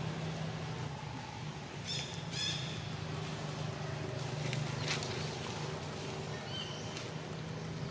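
Short high-pitched monkey squeaks, four or five brief calls, over a steady low hum.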